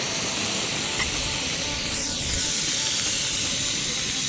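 Mackerel frying in a hot pan over a wood fire, sizzling steadily after a splash of oil and dressing, with a small pop about a second in. Wind rumbles on the microphone.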